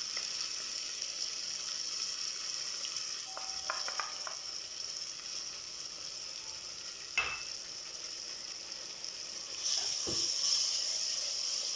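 Ginger-garlic paste and onions frying in hot oil in an aluminium pot, a steady sizzle. There is a sharp knock about seven seconds in, and the sizzle swells near the end as the pot is stirred with a ladle.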